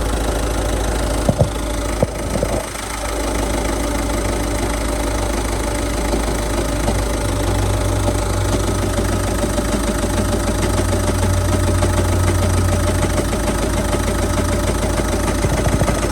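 Citroën Jumpy 1.5 turbo diesel engine idling with a strong knocking and heavy vibration. The cause is a damaged, out-of-balance dual-mass flywheel and clutch assembly.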